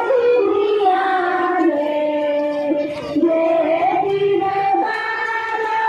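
A high voice singing a slow devotional chant in long held notes, with a faint crowd murmur beneath.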